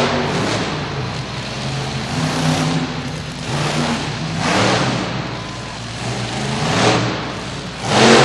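A 1,500-horsepower monster truck engine revving hard in repeated throttle bursts during a freestyle run, rising and falling several times, with the loudest surge near the end as the truck climbs onto crushed cars.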